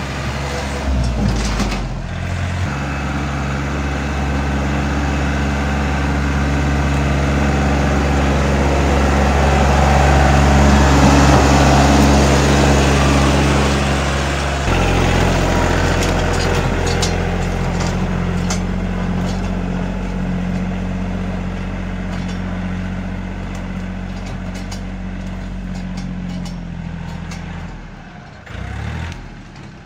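Compact tractor engine running steadily as the tractor drives through the undergrowth clearing a path through tall grass. It grows louder toward the middle, its note drops about fifteen seconds in, and it fades near the end.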